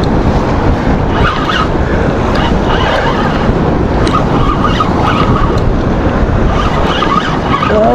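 Steady rushing of wind on the microphone mixed with waves washing against the jetty's rocks.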